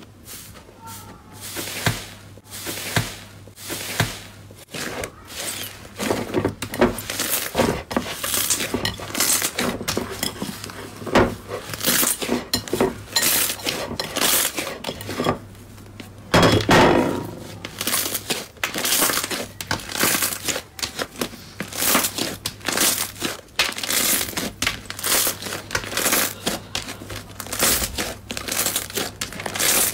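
Inflated orange slime being pressed, squeezed and kneaded by hand: a stream of crackling, popping sounds as the air trapped in it bursts, sparse at first and then dense, with a louder squelching burst around sixteen seconds in.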